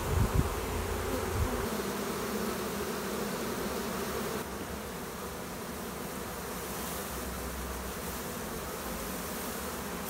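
A swarm of honey bees buzzing, a steady hum of many bees around their cluster as they crawl and fly between the branch and the hive box.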